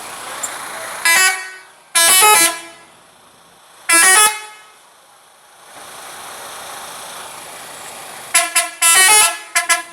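Scania bus's 'telolet' multi-tone musical air horn sounding in loud blasts: three separate toots in the first half, then a quick run of short stuttering toots near the end.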